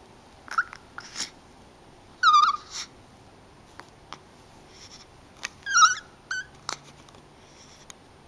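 Hiccups: about a dozen short, irregular hics, several of them brief high-pitched squeaks, the loudest about two seconds in and again near six seconds.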